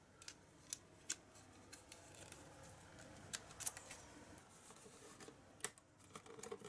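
Light plastic clicks and faint rubbing as a 2.5-inch Crucial SSD in a black mounting frame is handled, turned over and set into a laptop's drive bay. There are several scattered sharp clicks, the loudest about three and a half seconds in.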